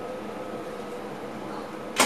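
Steady background noise inside a train driver's cab, with a faint hum fading out, and a sharp click right at the end.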